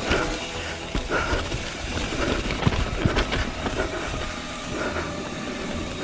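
Mountain bike clattering down a rough trail: tyres over rocks and roots, with chain and frame rattling and wind rumbling on the microphone. A few sharper knocks stand out around two and a half to three seconds in.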